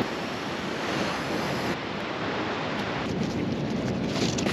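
Waves washing on the shore: a steady, even rush of noise.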